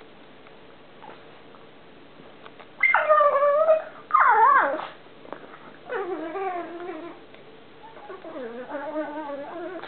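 Pug making strange drawn-out vocal noises: four wavering, pitched calls, two loud ones about three and four seconds in, then two softer, longer ones.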